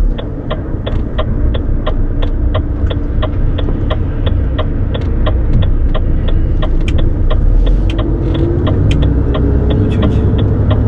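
Inside a truck cab: the diesel engine runs with a steady low rumble while the turn-signal indicator ticks evenly, about three clicks a second.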